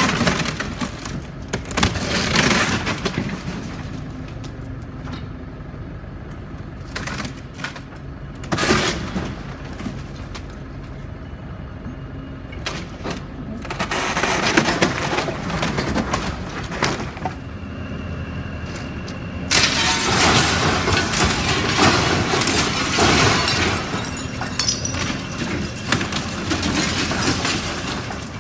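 Building demolition by a Volvo excavator: repeated bouts of crashing and cracking as brick, timber and sheet metal are torn away and fall. The longest stretch comes in the last third. A steady engine hum runs beneath.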